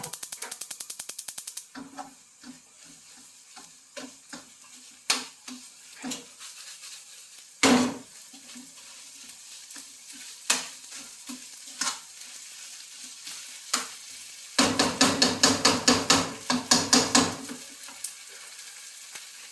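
Rice and kimchi being stir-fried in a pan: a utensil scraping and knocking against the pan over a faint sizzle. A fast rattle of strokes comes at the start, and a louder burst of rapid stirring strokes about three-quarters of the way through.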